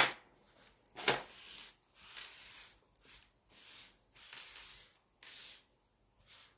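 Tarot cards being shuffled by hand: a series of soft papery swishes, about one a second, with a sharper click about a second in.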